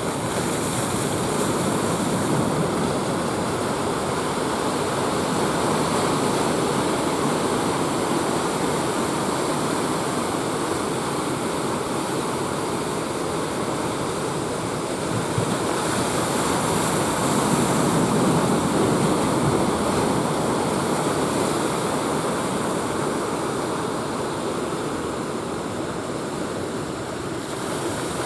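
Ocean surf breaking on a beach: a steady wash of waves that grows louder a little past halfway, then eases off.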